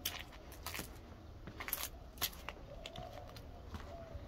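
A scatter of faint, irregular clicks and crackles, a dozen or so, with no steady rhythm.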